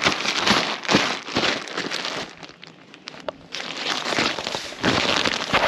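Camping gear fabric rustling and crinkling as it is handled and spread out, with a quieter stretch about halfway through marked by a few light clicks.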